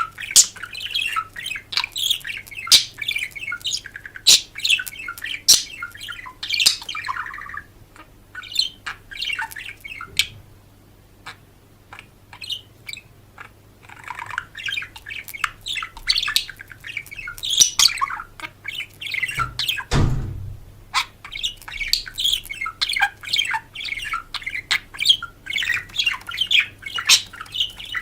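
Birds chirping and squawking in quick, sharp calls, thinning to a lull partway through before picking up again. There is a single low thump about two-thirds of the way in.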